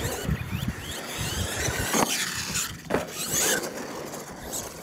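R/C monster truck's motor and drivetrain whining, the pitch rising and falling with the throttle, over tyres scrabbling on dirt. Two sharp knocks come about two and three seconds in.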